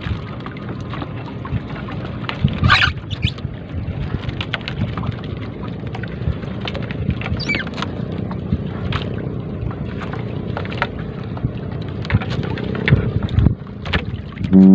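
Wind on the microphone and water lapping at a small wooden boat while a three-ply nylon shrimp net is hauled in by hand over the gunwale, with scattered rustles and light knocks. There is a faint steady low hum underneath and a brief louder noise about three seconds in.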